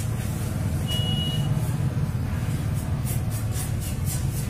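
Steady low engine rumble of a running motor vehicle, with a brief high beep about a second in and a series of light clicks in the last second and a half.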